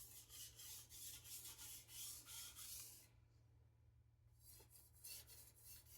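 Faint scraping strokes of a stainless knife edge drawn back and forth across a wet Pyrenees #1200 whetstone under only the knife's own weight, about three strokes a second, pausing briefly about three seconds in, then resuming.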